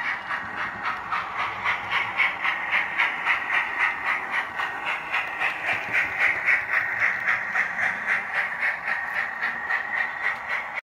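DCC sound-fitted model steam locomotive's speaker playing a steady, even beat of steam exhaust chuffs, a few a second, as the locomotive runs. The chuffing cuts off suddenly near the end.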